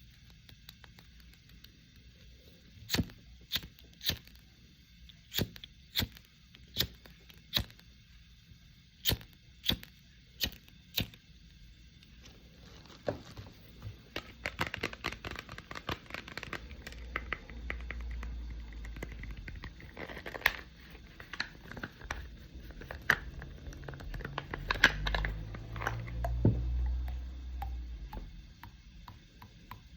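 Close-miked ASMR trigger sounds: about a dozen sharp taps or clicks, many in pairs, followed by a long stretch of dense crackling and crinkling with low thumping underneath.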